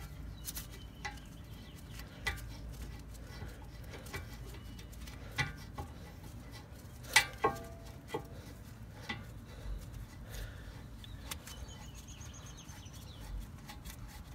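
Scattered metallic clicks and clinks as a 2008 Honda Accord's front brake caliper and its greased slide pin are fitted back onto the caliper bracket. Two sharper clinks come about seven seconds in, the first ringing briefly.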